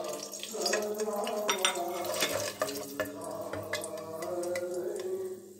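Whole spices (black peppercorns, cloves, cinnamon) frying in hot oil in a wok, with a perforated skimmer ladle stirring and clicking against the pan. A steady pitched background sound runs underneath.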